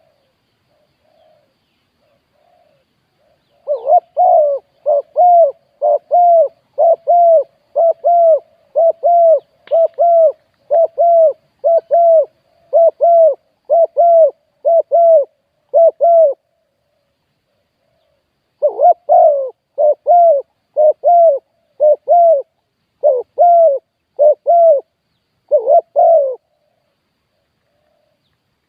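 Spotted dove cooing: two long runs of rapidly repeated coos, the second starting after a pause of about two seconds.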